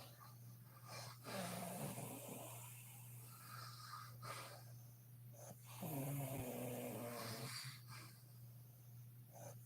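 A woman snoring in her sleep: two long snores about four and a half seconds apart, with fainter breathing between them, over a steady low hum.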